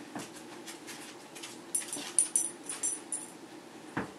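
Small dog making a string of short high-pitched sounds over a faint steady hum, with a knock near the end.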